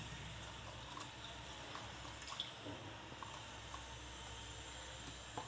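Milk pouring from a carton into a bowl of cream mixture, a faint steady trickle with a few small liquid ticks.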